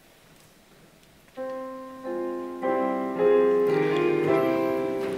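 Piano starts playing about a second and a half in, after a short near-quiet: sustained chords of a worship song's introduction, getting louder as new chords come in every half second or so.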